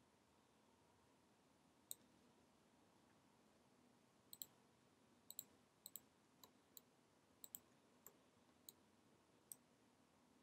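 Faint, scattered clicks of a computer mouse and keyboard, starting about two seconds in, several coming in quick pairs, over a faint steady hum.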